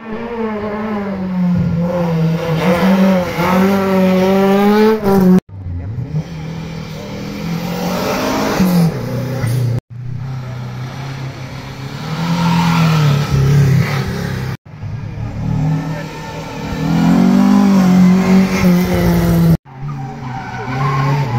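Historic racing cars accelerating hard up a hill road through a hairpin, one after another, engines revving with pitch rising and falling through the gears. The sound comes in short passes, each about five seconds long, that cut off abruptly.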